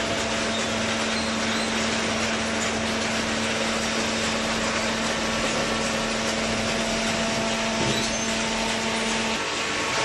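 Hydraulic waste-paper baler running: a steady mechanical din with a low, even hum from its motor and pump that cuts out shortly before the end.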